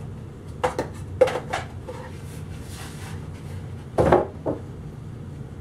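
Wooden beehive parts knocking and clattering as a medium super holding its frames is lifted and handled: a few sharp clicks in the first second and a half, then a louder thump about four seconds in as the box is set down on the bench.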